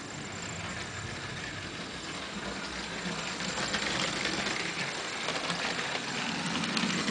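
Lego RC train motor and gears whirring as the locomotive runs along plastic Lego track, with fine clicking from the wheels; it grows louder about halfway through as the engine comes close.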